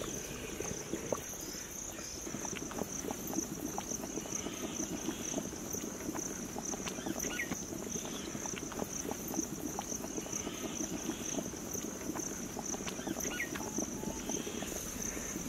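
Crickets chirping in a steady high drone, over a low, steady bubbling from a large pot of curry simmering over a wood fire.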